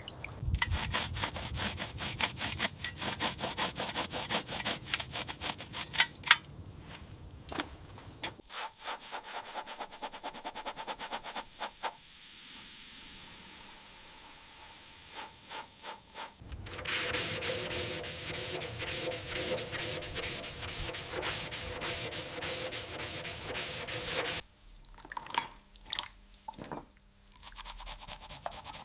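Abrasive rubbing on a surface in quick, repeated strokes, like sanding. It stops for several seconds partway through, resumes, and gives way to a few scattered light clicks near the end.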